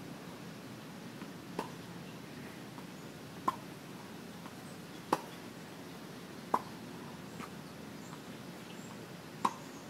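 Tennis ball being struck and bouncing during a warm-up rally on a hard court: sharp single pops about every one and a half to two seconds, five strong ones in all, over a faint steady hiss.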